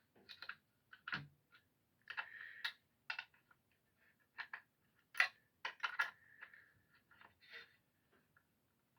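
Scattered light metal clicks, clinks and short scrapes of hand tools working the set screws and blade-holding bar on a planer's cutter head, as a dull blade is loosened for removal.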